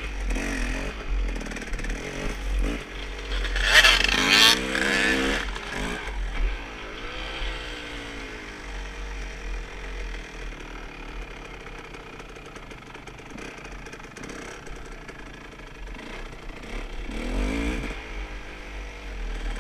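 Motocross dirt bike engine under way, revving hard with a rising pitch about four seconds in, then running at lower, varying revs, and picking up again near the end.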